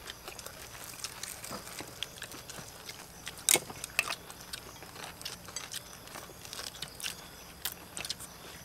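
Eating sounds: chopsticks clicking against ceramic plates, and people chewing. Scattered sharp clicks, the loudest about three and a half seconds in.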